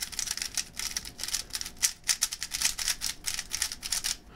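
Non-magnetic Yuxin HuangLong 3x3 speedcube being turned quickly by hand: a fast, continuous run of light plastic clicks and clatters as the layers spin.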